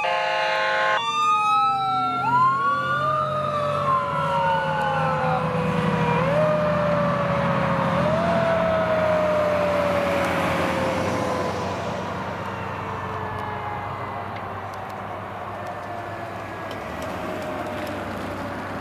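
Responding fire engine's air horn sounding for the first second, then sirens wailing. One siren rises in short pushes and slowly falls off between them, over a diesel engine's rumble, growing quieter as the apparatus drives away.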